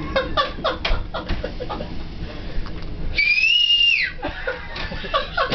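A person whistling one note for about a second, a little over three seconds in: it rises slightly, holds, then drops away at the end.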